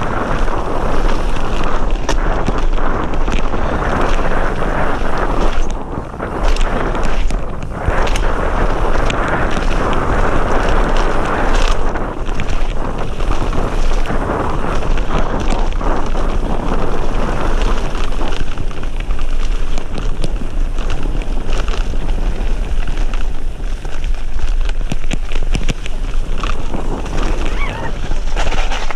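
Wind rushing over the camera microphone on a fast mountain bike descent, mixed with tyres rolling on a wet gravel trail and the bike rattling over bumps in many short knocks.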